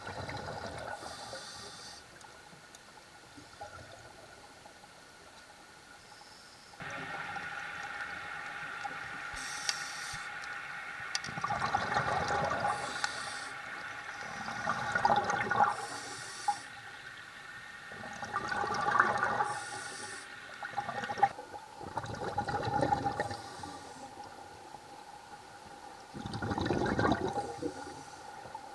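Scuba diver breathing through a regulator underwater: a hiss on each inhalation and a gurgling rush of exhaled bubbles, repeating every few seconds. A steady hum runs underneath through the middle.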